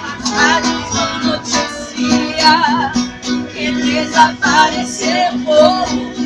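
Viola caipira and acoustic guitar playing a gospel hymn together, with a steady strummed pulse, and a woman singing with vibrato over them.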